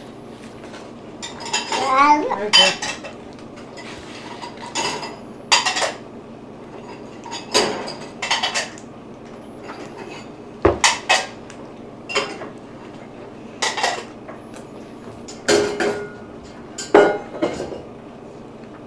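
Dishes and cutlery clinking at irregular intervals, a dozen or so sharp separate clinks, with a short vocal sound about two seconds in.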